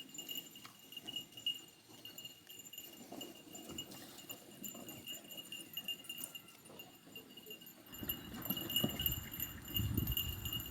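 Goats moving about in their pen, with scattered small knocks and clicks over a steady high-pitched buzz; a louder low rumble joins about eight seconds in.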